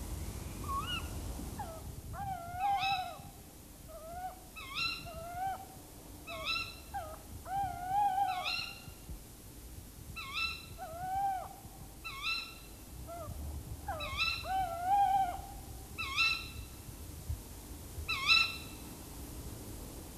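Tawny owls giving alarm calls: short, wavering notes repeated about once a second, a lower and a higher voice overlapping.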